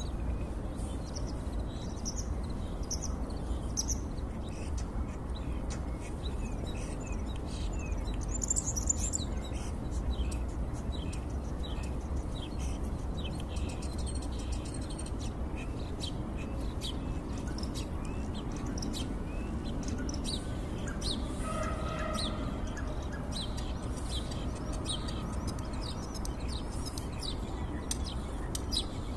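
Starling singing: a rapid, unbroken run of short chirps, clicks and whistles, with a few lower held notes about three quarters of the way through. A steady low rumble runs underneath.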